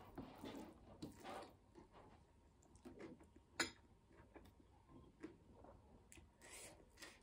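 Faint sounds of eating by hand: fingers squishing and scooping rice and dry meat on a metal plate, with quiet chewing. One sharp click sounds a little past halfway.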